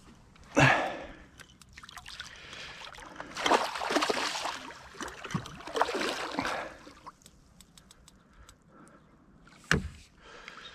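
Handling noise in a small boat as a freshly caught pike is dealt with: a sharp knock against the boat, a few seconds of rustling, clattering and water sloshing, then another knock near the end.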